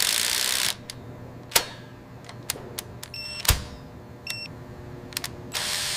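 Digital torque wrench sounds: a handful of sharp clicks and two short, high electronic beeps about a second apart, the wrench signalling that the set torque is reached. A burst of hiss opens the sound and another comes just before the end.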